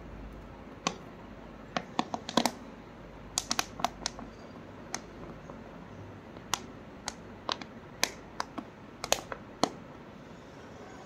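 Plastic bottle crackling in sharp, irregular clicks as it is squeezed to force thick cold coffee out into a glass.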